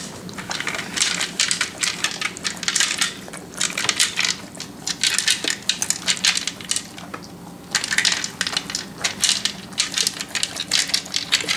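A Doberman crunching dry kibble and nosing it out of the ridges of a plastic slow-feeder bowl: dense, irregular crunches and clicks of kibble against the plastic, with a short lull a little past halfway.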